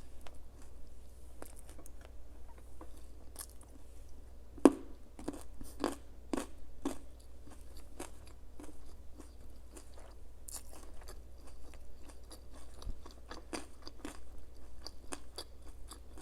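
A person biting and chewing crisp food close to the microphone: a string of crunches, with one loud sharp bite about four and a half seconds in and a burst of heavy crunching just after.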